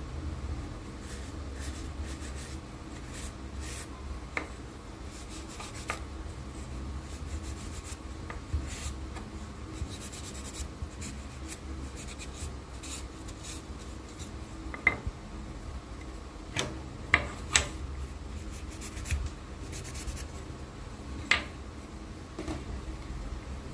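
Light scraping and rubbing of a hand tool on a wooden spoon, with scattered sharp clicks and taps, a few louder ones in the second half, over a low steady hum.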